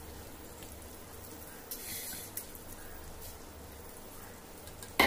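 Thick blended tomato paste poured and scraped from a steel bowl into a pan of hot melted butter, with a faint sizzle and a brief louder splatter about two seconds in. One sharp tap just before the end.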